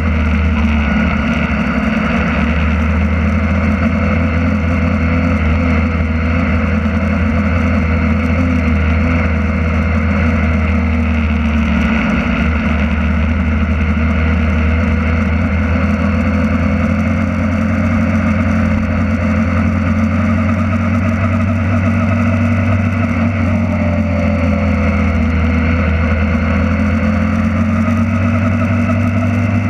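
BMW S1000R's inline-four engine running steadily at low revs on light throttle, heard onboard, its pitch drifting only slightly as the bike rolls along at low speed.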